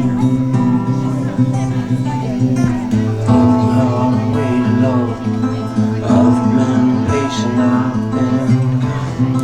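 Music led by guitar, with a steady rhythm of low notes under it.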